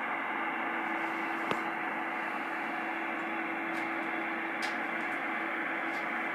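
Receiver static from a Galaxy DX2527 CB radio's speaker with no station talking: a steady hiss with a steady low tone running through it. One sharp click about a second and a half in.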